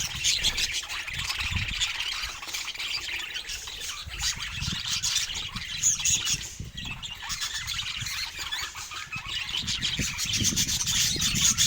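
A group of budgerigars chattering continuously, a dense run of warbles, chirps and squawks, thinning briefly about two thirds of the way in. Low thuds sound underneath.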